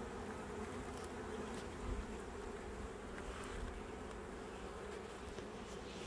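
Steady buzzing of a honeybee colony around an opened hive.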